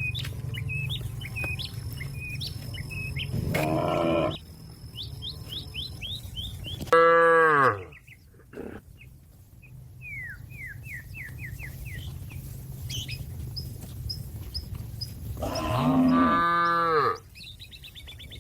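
A cow mooing three times: a short call about four seconds in, a louder one about seven seconds in, and a longer one near the end. The uploader takes this mooing for the cow calling its companions back to the pen. Between the moos, small birds chirp in quick runs of falling notes.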